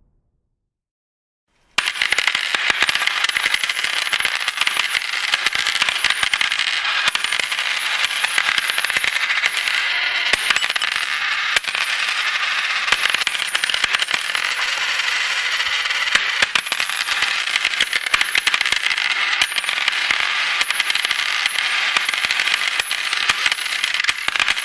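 A long, continuous cascade of coins falling and jingling, a dense stream of metallic clinks that starts suddenly about two seconds in and keeps a steady level.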